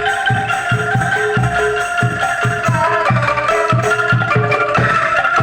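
Music with a steady drum beat of about three strokes a second under sustained melody notes.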